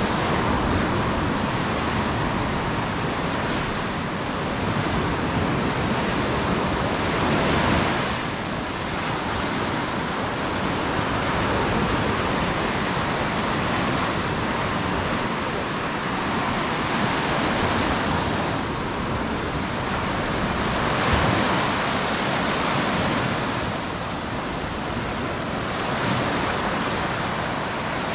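Sea waves breaking and washing up a beach: a continuous rush that swells now and then.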